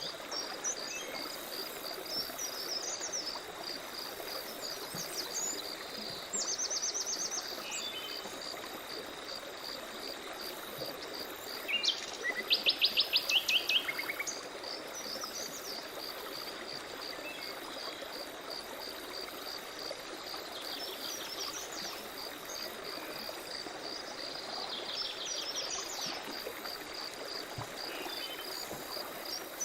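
Small songbirds calling and trilling over a rippling stream, with an insect's steady, evenly pulsing chirp underneath. The loudest moment is a fast trill of sharp bird notes about twelve seconds in; shorter trills come around six seconds and again near the end.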